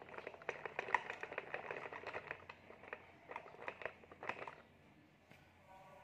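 Hard plastic toy parts clattering, a quick irregular run of clicks and taps that stops about a second before the end.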